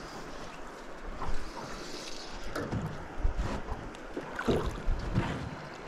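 Drift boat floating on a river: water lapping against the hull, with wind on the microphone giving a few low thumps.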